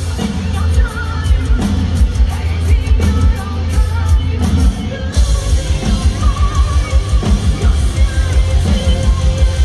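Live heavy metal band playing through a large stage PA: distorted electric guitars, bass and a driving kick drum, with a singer's voice over them.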